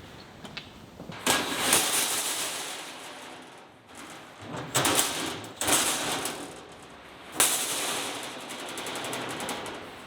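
Electric arc welding on steel: four short weld runs, each starting suddenly and crackling steadily for one to two and a half seconds, with short pauses between.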